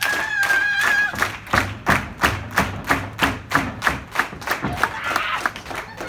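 A wrestler's drawn-out yell, then a steady run of sharp slaps, about three a second, for several seconds in a wrestling arena.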